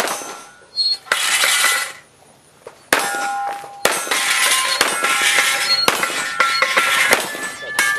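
Pistol fired in quick strings, sharp shots coming in bursts with short pauses between them, a metallic ringing heard through some of the strings.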